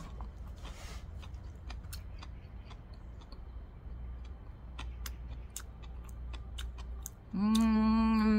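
A person chewing a mouthful of gimbap, with small scattered crunchy clicks. Near the end comes a loud, steady hummed "mmm" lasting about a second.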